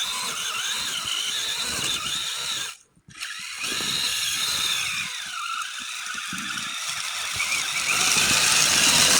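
Electric drive motor and geartrain of a tracked RC Summit truck whining as it drives through deep snow, the pitch rising and falling with throttle. It stops for about half a second about three seconds in, then starts again and grows louder near the end.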